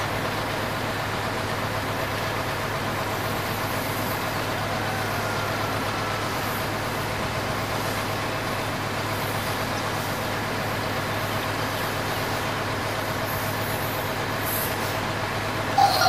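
Remote-control toy excavator running, a steady hum with a constant low drone.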